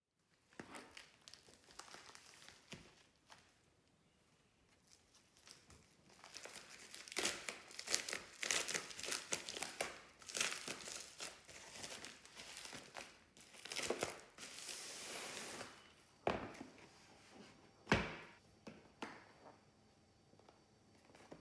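A padded plastic mailer bag crinkling and tearing as it is opened by hand, in quick crackly bursts, with a steadier rustle as the contents slide out. A couple of sharp knocks follow near the end.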